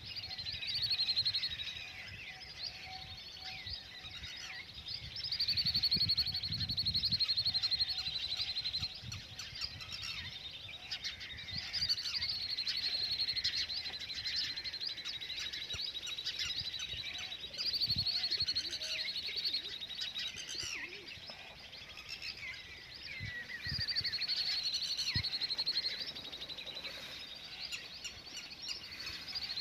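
Many small birds chirping and singing together in a continuous chorus of high, rapidly repeated trills, with a low rumble now and then.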